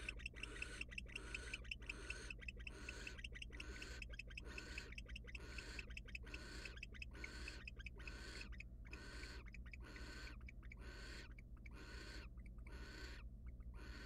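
Barn owl giving a long series of raspy hissing calls, about two a second, the pauses between them growing longer in the second half. This is the snoring call that barn owls use in the nest box to beg for food. A steady low electrical hum from the camera runs underneath.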